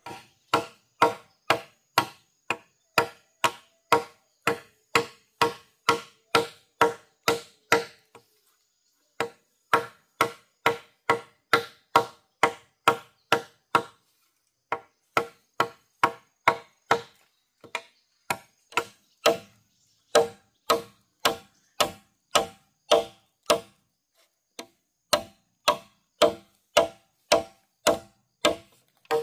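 Repeated strikes on bamboo with a hollow ringing tone, about three a second, in runs broken by short pauses a few times: bamboo being chopped or worked with a hand tool.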